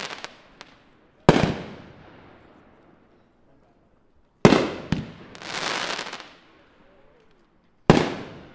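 Brothers Pyrotechnics Baby Boomer fireworks cake firing: three sharp bangs about three seconds apart. The middle one is followed half a second later by another bang and then a couple of seconds of crackling stars. An earlier burst's crackle fades out at the start.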